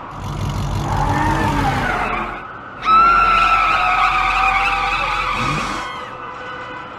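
Cartoon car sound effects: an engine running with a pulsing low rumble, then just before three seconds in a sudden loud tyre squeal, a skid held for about three seconds before it fades.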